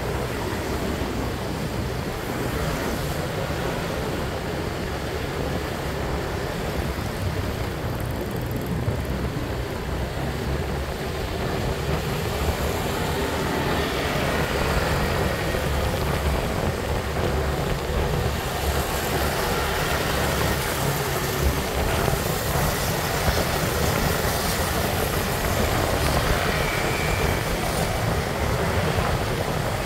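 Motorbike riding along a street, heard from the rider's seat: a steady rumble of wind on the microphone mixed with the engine and road noise, getting a little louder about halfway through.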